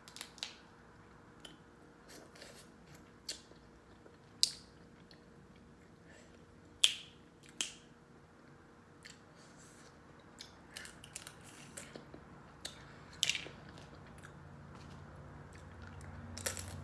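Close-up eating sounds of seafood being peeled by hand and eaten: scattered sharp snaps and cracks of shell with wet chewing, the loudest snaps about four and a half, seven and thirteen seconds in.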